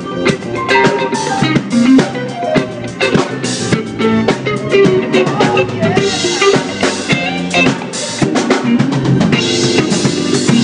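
A live rock-pop band plays an instrumental passage with no vocals. A drum kit keeps a steady beat with snare, bass drum and cymbals, under electric bass and a semi-hollow electric guitar.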